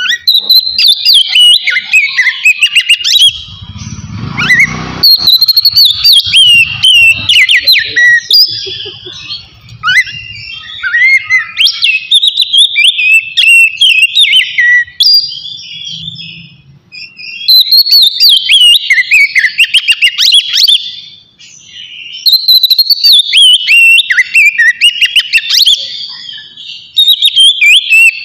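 Oriental magpie-robin (kacer) singing loudly in the open, clear 'ngeplong' style: fast, varied phrases of whistled glides and rapid notes, in long bouts broken by two short pauses.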